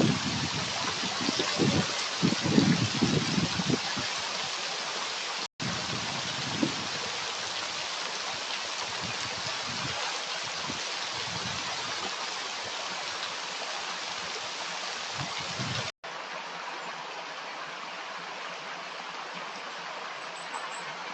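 Stream of running water rushing steadily, with some low rumbling gusts in the first few seconds. The sound drops out briefly twice, and after the second break it is a little quieter.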